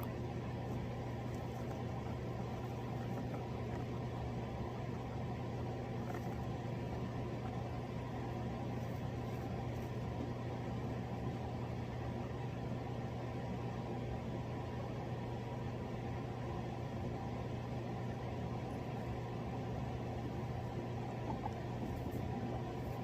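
Steady low mechanical hum with an even hiss, unchanging throughout, like a fan or motor running.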